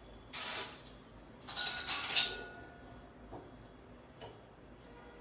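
Metal ice cream scoop being handled on a granite countertop: two scraping, clattering bursts, the second with a short metallic ring, then a couple of light ticks.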